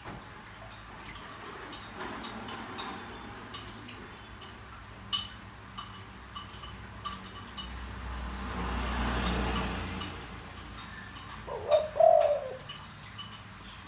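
Spotted dove cooing: one short, low coo of a couple of notes near the end. Scattered small chirps and clicks, and a soft rushing swell in the middle.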